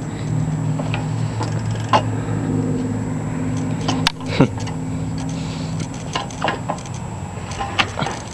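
Bicycle being pedalled to spin the tyre against a homemade rubber-taped friction roller: a steady low whir that stops about six seconds in, with scattered clicks and knocks from the drivetrain and handling.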